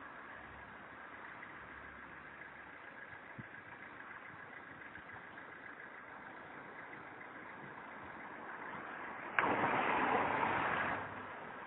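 Steady hum of street traffic and an engine running. About nine and a half seconds in, a sudden loud rush of noise starts with a click and stops abruptly about a second and a half later.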